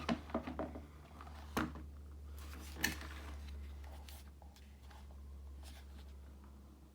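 Handling noise: a few light clicks and knocks, the clearest about one and a half and three seconds in, over a low steady hum.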